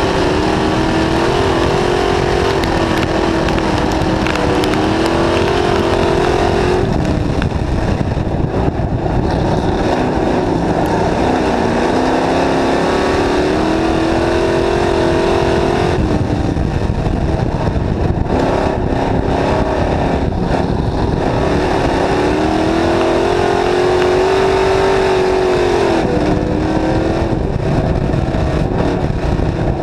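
A dirt-track stock car's engine at racing speed, heard from on board. The revs climb for several seconds down each straight, then drop sharply as the driver lifts for a turn, three times over, with a constant rough roar of noise underneath.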